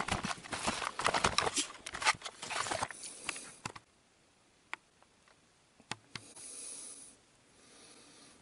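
Handling noise from a camera being picked up and moved close: rustling and a quick run of knocks and clicks, then a few faint single clicks and a short hiss about six seconds in.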